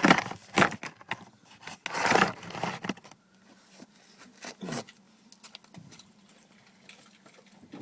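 Rattle in a 2000 BMW 318Ci: a run of irregular loose knocks and clicks for the first three seconds or so, loudest near the start and again about two seconds in. After that only scattered faint clicks over a low steady hum.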